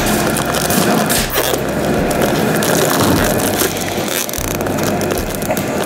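Plastic heat-shrink bag crinkling and rustling with a dense, continuous crackle as gloved hands twist its neck closed around a whole chicken and cinch a zip tie.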